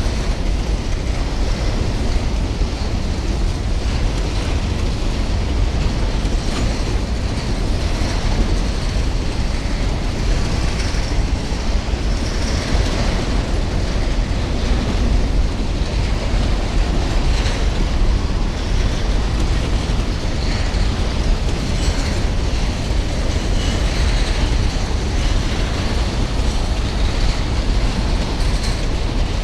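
Train wagons rolling along the rails: a steady heavy rumble with the wheels clicking over rail joints.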